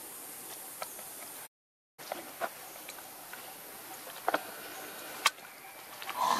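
Outdoor background hiss with scattered light clicks and ticks. The sound drops out for about half a second a second and a half in, one sharp click comes about five seconds in, and a short louder sound follows near the end.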